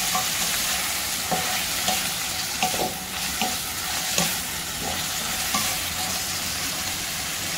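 Raw shrimp with garlic and chilies sizzling in hot oil in a metal wok, a steady high hiss, as a wooden spatula stirs them with short, irregular scrapes and taps against the pan.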